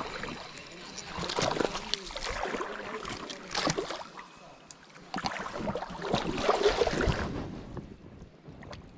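Legs wading through shallow creek water, splashing and sloshing in uneven surges in two stretches, dying down near the end.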